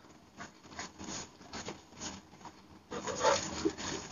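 Soft rustling of paper and items being handled and shuffled on a cabinet shelf, getting louder about three seconds in.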